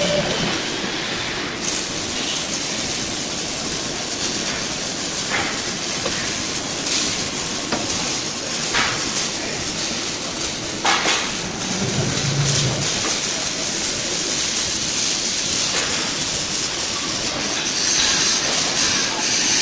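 CNC gantry machine's spindle cutting a steel plate: a steady hissing machining noise with a few sharp clicks, growing louder and brighter near the end.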